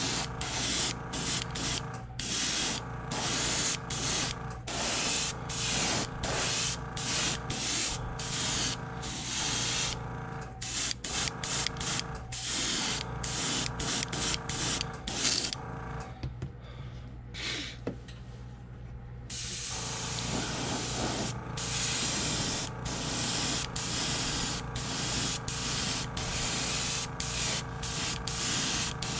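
Airbrush spraying white paint at about 25 to 30 PSI onto a carved wooden lure, hissing in short bursts about two a second as the trigger is worked, with a pause of about four seconds midway. A steady hum runs underneath.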